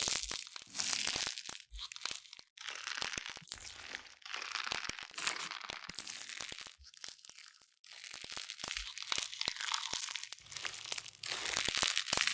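Close-up crunching and crinkling in irregular bursts a second or two long, thick with sharp crackles, with short gaps between them.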